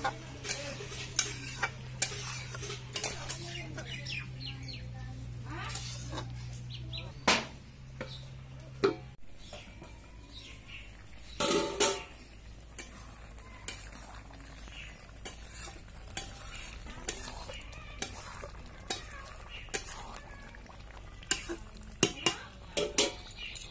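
Metal spatula scraping and clanking against an iron kadai as a goat-meat curry is stirred: irregular sharp knocks, with the loudest cluster about halfway through.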